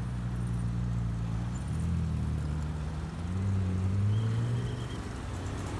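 McLaren GT's twin-turbo V8 idling, then rising in pitch and getting louder as the car pulls away at low speed, easing off again about five seconds in.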